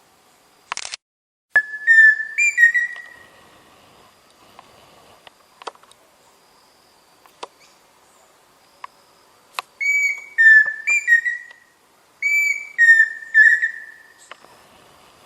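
Pheasant cuckoo singing: three phrases of clear whistled notes, each a few stepped notes ending in a quavering one, about a second and a half in, then twice more near the end. A short noisy burst comes just before the first phrase.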